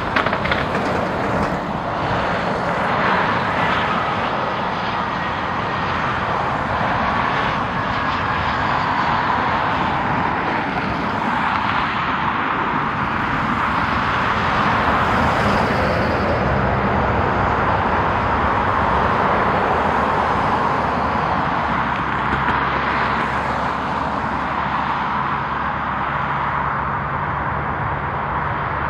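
Jet airliner engines running: a steady, loud rush of jet noise, with a faint high whine about halfway through.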